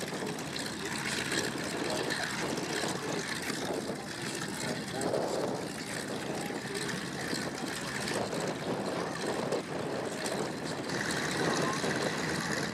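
Radial engines of Harvard-type warbird trainers running at idle with propellers turning, a steady rough engine noise as they sit and taxi.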